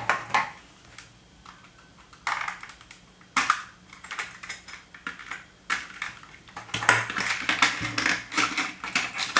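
Hands handling a small plastic pack of coloured craft staples: scattered clicks, taps and plastic rustling, sparse at first and thicker in the last few seconds as the pack is opened and a strip of staples is set on a plastic stapler board.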